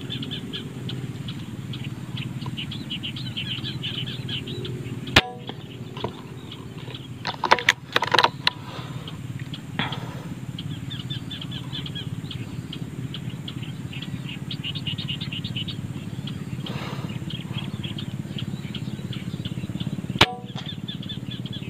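A PCP air rifle firing twice, one sharp crack about five seconds in and another near the end. A few quieter knocks and rustles follow a couple of seconds after the first shot. A steady low hum and high chirping run underneath throughout.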